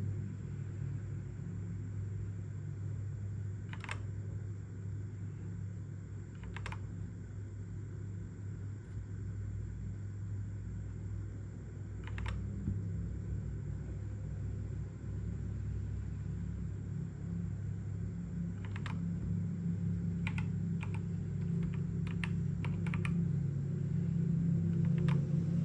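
Keys of a Jedel KL150 mechanical keyboard being pressed one at a time: scattered single clicks several seconds apart, then a quicker run of presses near the end, over a steady low hum.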